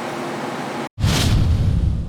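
Steady running noise of a KiHa 261 series diesel express train, cut off abruptly just under a second in. A louder rush of deep rumble and hiss then starts and begins to fade away.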